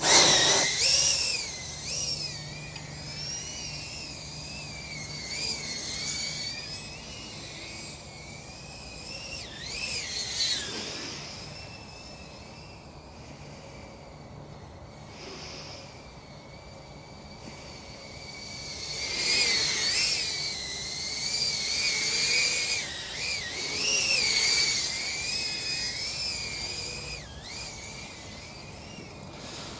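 FPV racing drone's brushless motors and propellers whining, the pitch rising and falling constantly with the throttle. It is loudest at a burst right at the start and again in a run of quick surges about two-thirds of the way through.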